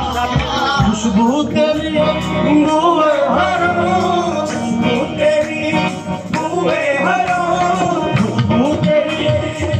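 Live qawwali music: harmoniums and male voices singing a gliding melody over a steady percussion beat.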